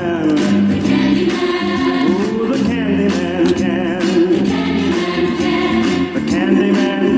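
Background music: several voices singing together in harmony over an accompaniment.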